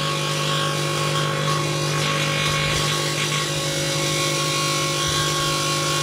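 Panasonic microwave oven running steadily: a constant electrical hum with several steady tones and a hiss from its fan, while a light bulb heats inside it.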